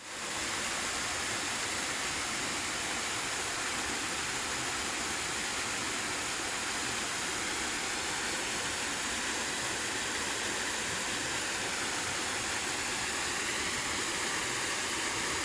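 Virje waterfall's water falling and rushing steadily, an even roar with no breaks.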